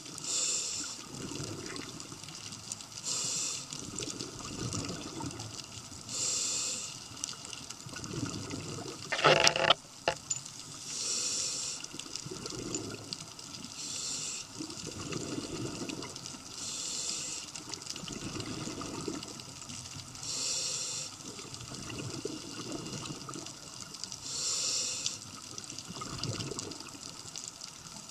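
Scuba diver breathing through a regulator underwater: a hiss of inhalation about every three seconds, each followed by a gurgling rush of exhaled bubbles. A brief loud clatter about nine and a half seconds in.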